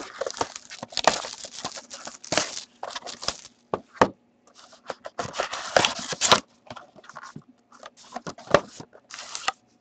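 A cardboard trading-card hobby box being handled and torn open: irregular bursts of scraping, tearing and rustling cardboard and paper, with sharp clicks.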